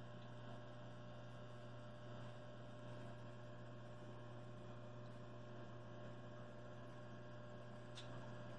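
Steady low electrical hum, with a faint tick about eight seconds in.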